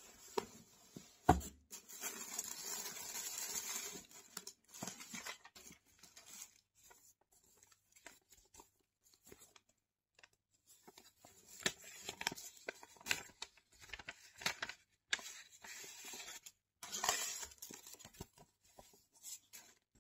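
Tissue paper and paper inserts rustling and crinkling as they are handled out of a shoebox, with a sharp thump about a second in. A couple of seconds of dense rustling follow the thump, then scattered crinkles and handling noises.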